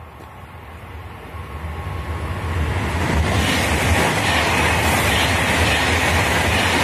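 High-speed electric train approaching and passing at speed: a rushing of wheels on rail and displaced air that grows louder over the first three seconds, then holds steady as the carriages sweep by.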